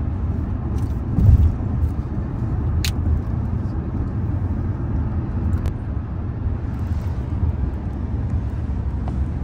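Steady low road and tyre rumble inside a Hyundai SUV's cabin at highway speed, with a brief low thump about a second in and a couple of faint clicks.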